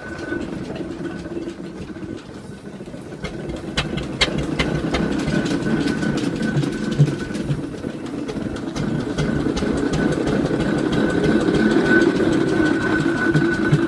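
1927 Fowler traction engine running under steam as it reverses, with a steady mechanical clatter and a thin, steady high tone above it. It grows louder from about four seconds in as the engine moves past.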